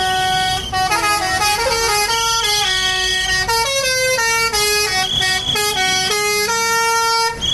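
Tour bus's multi-tone musical horn playing a melody, its pitch stepping quickly from note to note with some notes held, loud throughout and stopping abruptly near the end.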